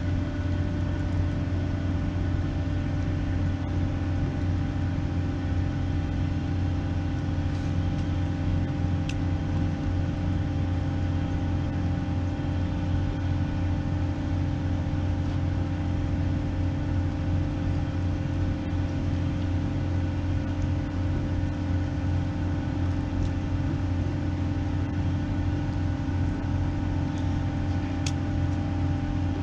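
Steady drone of a large vessel's engine machinery: a deep, unchanging hum with several steady higher tones above it. A few faint clicks sound over it.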